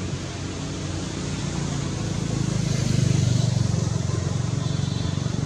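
A motor vehicle engine running steadily, its low hum growing louder about halfway through.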